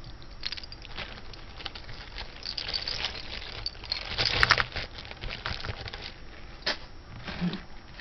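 Pieces of costume jewelry being handled: plastic bags crinkling, with small irregular clicks and rattles of metal and beads. The handling is busiest in the middle, where the sharpest click falls a little after four seconds in.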